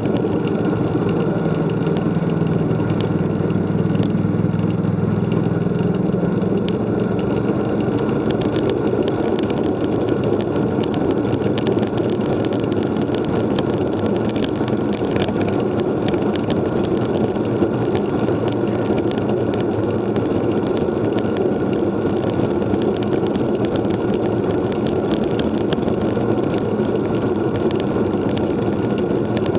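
Steady rushing noise of a road bike ridden at speed in a bunch: wind on the camera's microphone and tyres on the road. A low hum runs underneath for the first seven seconds or so, then fades.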